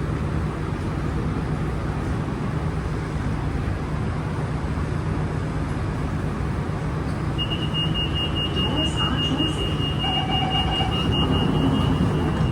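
Kawasaki-CRRC Qingdao Sifang T251 metro train standing at a platform, its steady low hum and rumble filling the carriage. A little past halfway a high steady warning tone starts and keeps going: the door-closing alert before departure.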